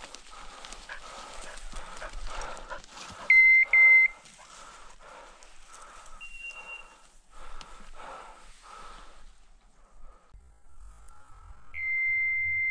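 Steps rustling through dry ferns and leaf litter about twice a second, stopping about nine seconds in. About three seconds in come two loud short electronic beeps, and near the end a long steady beep, typical of a pointing dog's beeper collar.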